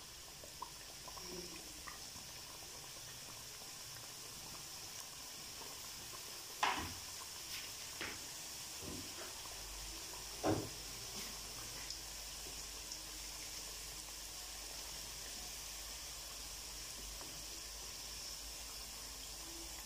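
Samosas deep-frying in oil in a wok on a low flame: a faint, steady bubbling sizzle. Two brief knocks stand out, about four seconds apart, near the middle.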